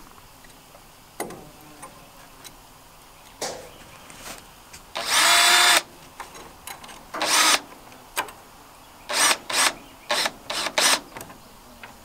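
Power drill driving screws into the tin roofing: one longer run of motor whine about five seconds in, a shorter one after it, then several quick trigger blips near the end to seat the screws.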